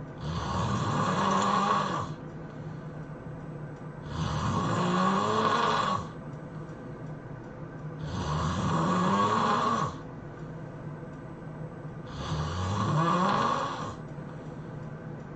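A person snoring loudly in deep sleep: four long snores, about one every four seconds, each lasting about two seconds and rising in pitch, with quieter breathing between them.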